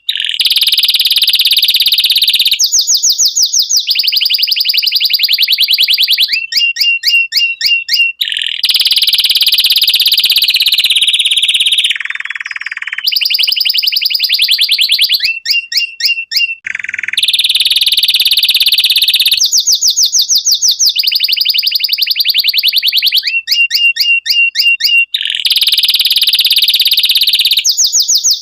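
Domestic canary singing a loud, continuous song of very fast trills and rolls, switching to a new phrase every two or three seconds, with a short softer passage about halfway. It is the song of a canary in breeding condition.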